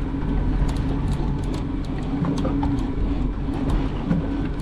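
The boat's outboard engines running steadily with a low, even hum.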